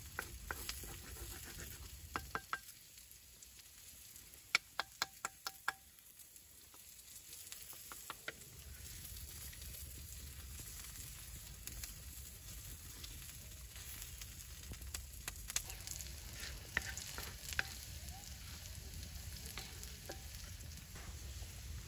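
Diced potatoes sizzling on a stone slab heated over a wood fire, stirred and scraped with a wooden spatula. A quick run of about six sharp knocks, the spatula tapping the stone, comes about four and a half seconds in, with scattered clicks later.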